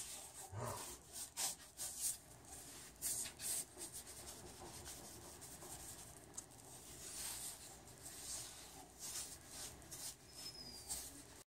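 Paintbrush bristles rubbing paint onto a wall in short, irregular strokes, a faint scratchy swishing; it cuts off abruptly near the end.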